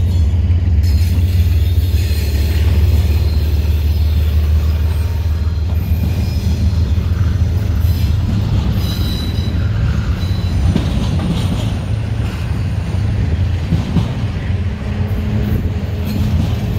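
BNSF diesel locomotives rumbling past and moving off, followed by double-stack intermodal container cars rolling by, their wheels running on the rails with a faint high squeal. The deep engine rumble weakens after about ten seconds.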